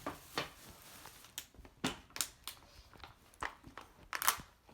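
Handling noise: a scattered series of short knocks and rustles, about eight in all, the loudest pair near the end.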